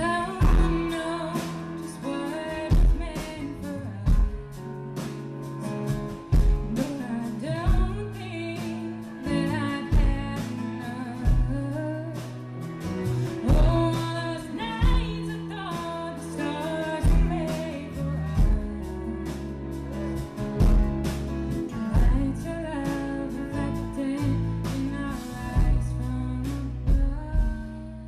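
Live band music with a singer, guitar and a steady drum beat.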